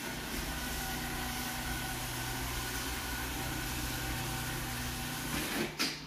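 Roomba s9 robot vacuum running, a steady hum with a high whine over a hiss of suction. A brief loud swish comes just before the end, after which the running sound drops lower.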